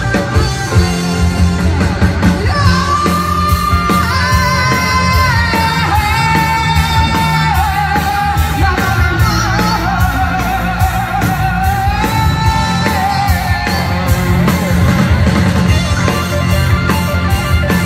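Live rock band playing: singing with long held notes over electric guitars, bass and a drum kit, heard from among the audience in a large hall.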